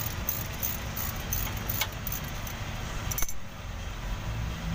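Metallic clicking and clinking of a socket wrench on an extension as a bolt on a truck's steering box is worked loose. The clicks come irregularly, about two a second, and stop a little over three seconds in, over a steady low rumble.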